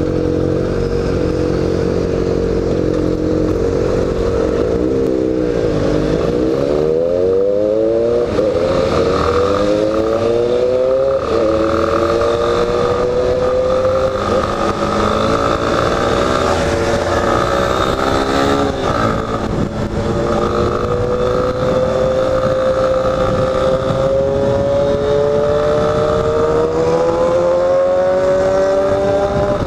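Yamaha Lander XTZ 250's single-cylinder four-stroke engine under way, its note likened to a Yamaha XJ6. The engine drops in pitch about five seconds in, then pulls up through the gears, with rising revs broken by short drops at each shift, and ends in one long climb toward top speed.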